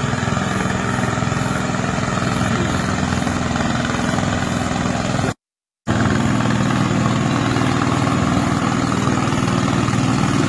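Boat engine running steadily, a loud even drone. It breaks off for half a second about five seconds in and comes back a little deeper and louder.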